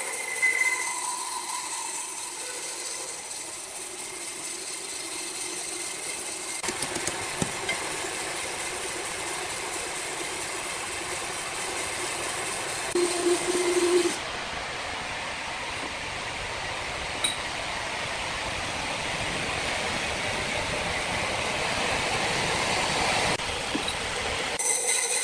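Sawmill machinery running with a steady, noisy whir that changes abruptly several times as the scene cuts, with a brief humming tone about halfway through.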